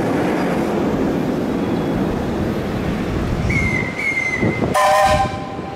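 A 1922 Vulcan 2-4-0 tank steam locomotive gives one short whistle blast about five seconds in, over a steady rushing noise. A thin high tone sounds briefly just before it.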